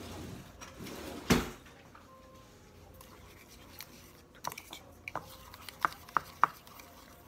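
A single loud knock about a second in, then a fork clicking and tapping against a plastic mixing bowl several times near the end as a thick sauce is stirred.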